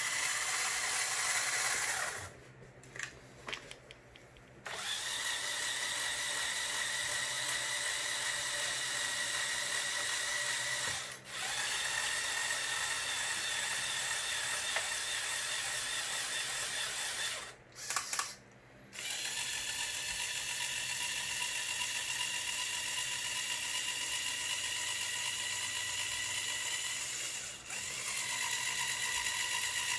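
Small electric motors and plastic gears of a motorized Lego Technic excavator model whirring steadily. The pitch of the whine shifts as different functions run. The drive stops twice, with a few clicks in the pauses.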